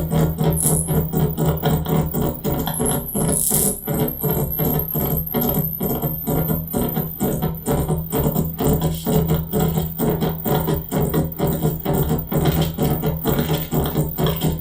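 Electronic noise music built from microwave-oven electromagnetic interference run through a no-input mixer: a fast, even pulsing of about four or five beats a second over a steady low hum, with a thin high whine that dips twice early on.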